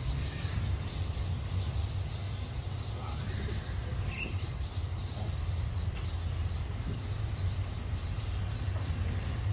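Street ambience: a steady low rumble of traffic and engines, with a brief sharp click about four seconds in.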